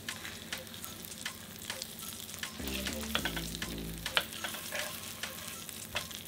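Egg-soaked bread frying in butter in a small rectangular pan: steady sizzling with frequent sharp crackles and spits.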